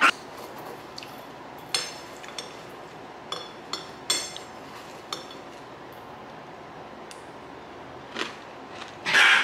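Enamel spoon scraping and clinking against a speckled enamelware bowl while scooping ice cream and granola: a scatter of short scrapes and light clinks, with a longer, louder scrape near the end.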